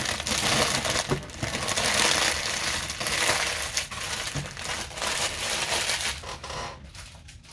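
Loose resin diamond-painting drills pouring and rattling into a container, with plastic crinkling. It is a dense, fast crackle of many tiny clicks that thins out and stops near the end.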